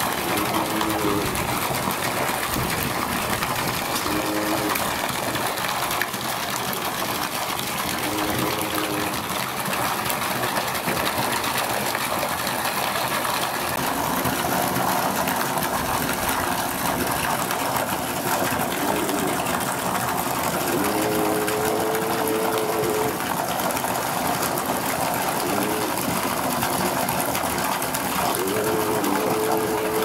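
Steady rushing and splashing of water in an aquarium seal pool, with short pitched voice-like sounds now and then.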